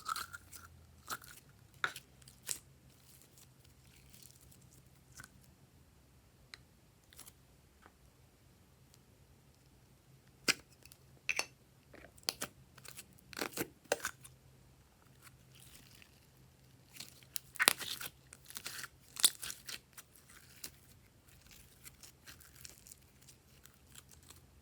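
Slime being squeezed and worked by hand, giving scattered sharp clicks and crackles that come in clusters about ten and eighteen seconds in, with quieter stretches between.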